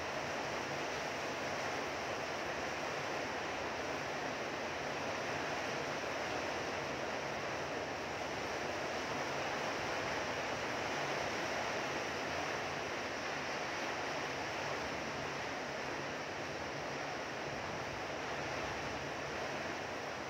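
Heavy rain pouring down steadily: a dense, even hiss with no breaks.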